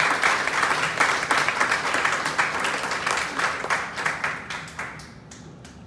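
Audience applauding: dense clapping that thins out to a few scattered claps and dies away near the end.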